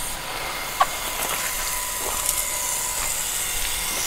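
Small 0.5 HP electric water pump running steadily with a thin, even whine, switched on by its automatic pressure controller because the garden hose is open. Over it is a steady hiss of water spraying from the hose, with a couple of faint clicks.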